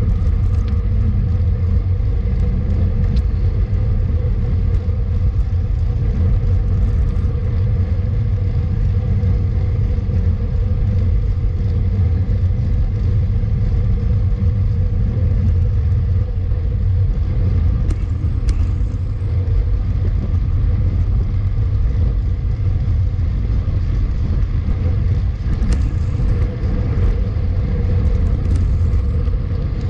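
Steady low wind rumble on the microphone of a camera riding along on a road bike, with a few light clicks about halfway through and again near the end.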